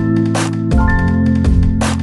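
Background music with a steady drum beat, a bass line and sustained keyboard chords.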